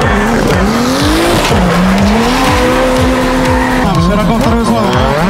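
Drift car engines revving hard, the pitch climbing and dropping as the throttle is worked, with tyres squealing as the cars slide sideways.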